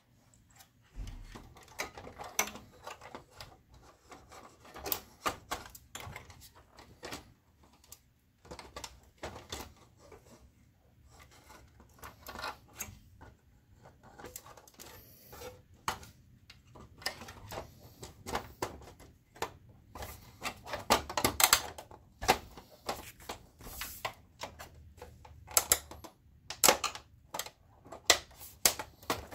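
Plastic housing of a BenQ HT2050 projector being handled and fitted back together: irregular clicks, taps and knocks as the top cover is set onto the chassis and pressed into place, loudest about two-thirds of the way through.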